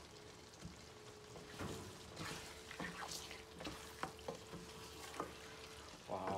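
A wooden spatula stirring and turning chunks of lamb in masala in a stainless steel sauté pan, with a series of short knocks and scrapes against the pan, over the food sizzling. A faint steady hum runs underneath.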